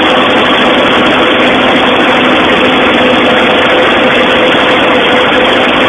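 John Deere 9500 combine running close by: a loud, steady diesel engine and machinery drone with a constant hum under it.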